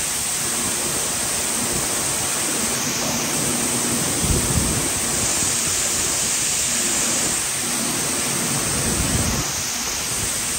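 Shelled corn pouring in a steady rush from the open rear gate of a grain trailer onto the steel grate of an unloading pit.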